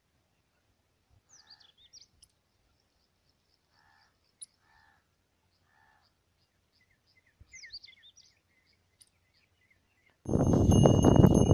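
Faint bird chirps and short buzzy calls over near silence. About ten seconds in, a loud jingle of bullock neck bells starts suddenly, ringing steadily over a dense rough noise.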